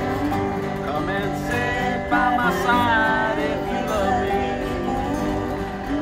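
Instrumental break of a country folk tune on two strummed acoustic guitars and a resonator guitar, whose lead line has gliding, sliding notes over the chords.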